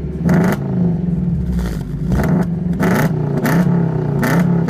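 Lada Priora's tuned exhaust: the four-cylinder engine idles steadily and is blipped in about six short, quick revs, each rising and falling sharply.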